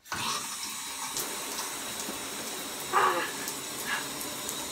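Bathtub faucet turned on: water starts suddenly and runs steadily from the tub spout. There is a brief louder sound about three seconds in.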